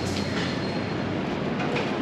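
Steady low rumbling city background noise, with a few faint short ticks on top.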